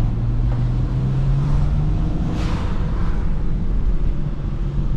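BMW 335i's turbocharged straight-six pulling steadily, heard from inside the cabin over road noise. The engine note climbs slightly over the first couple of seconds, then holds.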